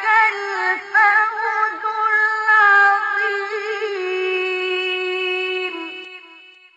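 Male Quran reciter's voice in the ornamented mujawwad style, drawing out a phrase in wavering melismatic runs. About four seconds in it settles on one long held note that fades away near the end.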